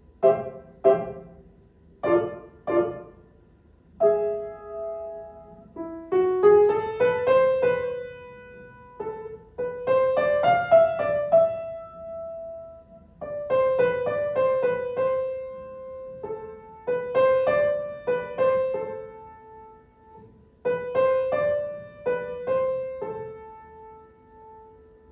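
Upright piano played solo: the melody part of a simple beginner's waltz, struck notes in short phrases with brief pauses, mostly in the middle register. The last note is held and dies away near the end.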